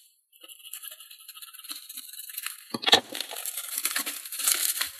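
A white plastic shipping mailer rustling and crinkling as hands open it and rummage inside, with a single sharp tap just before the three-second mark, after which the crinkling grows denser.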